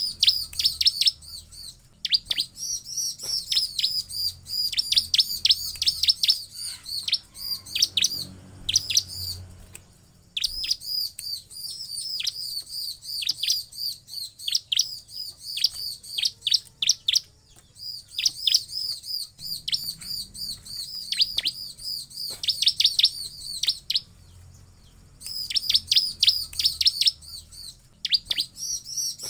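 Bar-winged prinia (ciblek) singing: fast runs of high, sharp chirps, several a second, broken by short pauses every few seconds.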